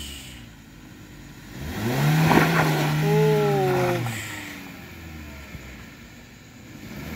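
A vehicle engine revs up about a second and a half in, holds its pitch for about two seconds, then drops away around four seconds in, as a vehicle strains up the steep, slippery climb.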